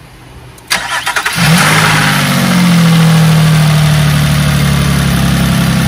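2006 Nissan Murano's 3.5-litre V6 cranked by the starter for under a second, catching quickly, flaring up in speed and settling into a steady idle. This is the test start after a new ignition coil pack went in on the misfiring cylinder 2, and it fires right up.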